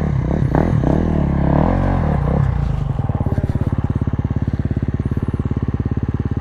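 Yamaha Ténéré 700's parallel-twin engine revving up and down with the throttle, then settling about three seconds in to a steady, evenly pulsing low-rpm beat.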